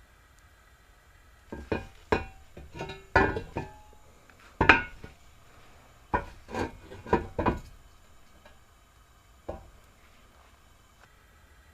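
A series of knocks and clinks of metal and wood being handled and set down, about a dozen in the first two thirds, with a last single knock near the end.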